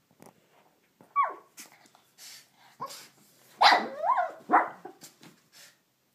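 A Shih Tzu barking in short, scattered barks while attacking a bath towel. The loudest run of barks comes in the middle.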